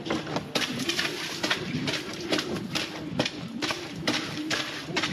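Hurried footsteps splashing through shallow water along a narrow concrete tunnel, about two to three steps a second, with a hollow echo.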